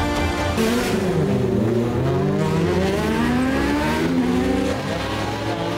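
Racing car engine at high revs, its pitch rising and falling several times as the car accelerates up the course.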